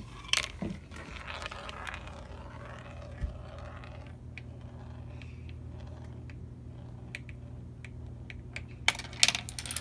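Marbles rolling and clicking along a marble-run track: a rolling, scraping rush in the first few seconds, scattered small clicks, then a cluster of louder clacks near the end.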